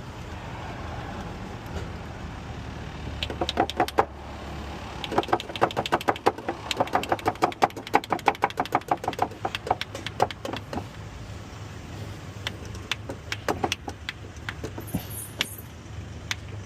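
Rapid sharp metallic clicking from hand tools working on the old thread coil insert in the tensioner bolt hole, in a dense run of several clicks a second from about three to eleven seconds in, then scattered clicks, over a steady low hum.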